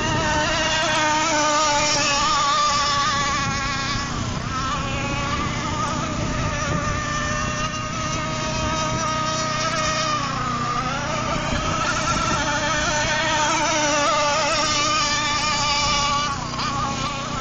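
Motor of a radio-controlled racing boat running at speed across a pond, a steady whine whose pitch wavers and dips briefly about ten seconds in before climbing again.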